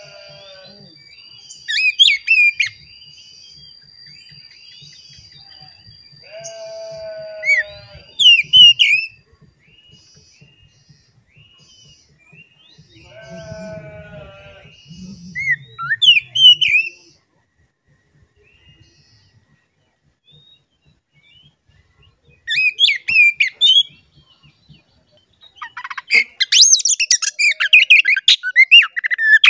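Oriental magpie-robin (kacer) singing in short separate bursts of sharp, quickly gliding chirps and whistles, with a longer, denser run of song near the end.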